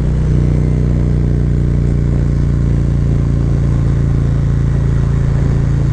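Harley-Davidson Road Glide Special's Milwaukee-Eight V-twin running at steady throttle through a Khrome Werks full exhaust on a stage one setup (high-flow air cleaner, Screamin' Eagle tuner), a deep, even rumble heard from the saddle while cruising.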